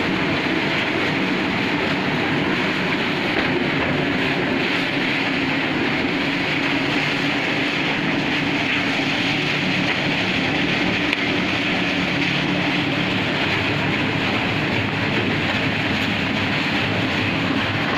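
Mushroom baglog waste separator machine running steadily, a continuous even mechanical noise with no pauses.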